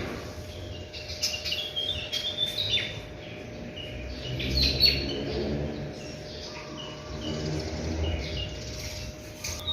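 Small birds chirping, quick repeated tweets through the first half and again in the middle, over a faint steady hum.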